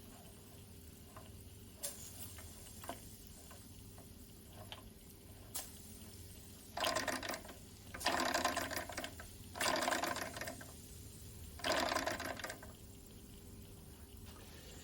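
Mamod SE1 toy steam engine making four short bursts of rapid chuffing, each dying away after about a second, as it fails to keep running. A few faint clicks come before them. The owner suspects too much water in the boiler, with hot water rather than steam reaching the cylinder.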